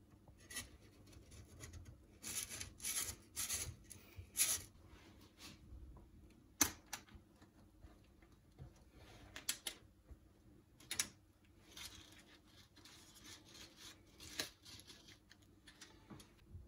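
A knife scraping around the inside of a metal springform ring to loosen the biscuit crust, in several short strokes. Then come single sharp clicks and clinks as the pan's side latch is opened and the ring is lifted away.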